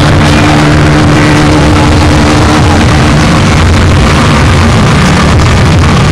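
Car sound system blasting at full volume, so loud that the recording is overloaded and distorted into a dense, unbroken roar of bass and noise.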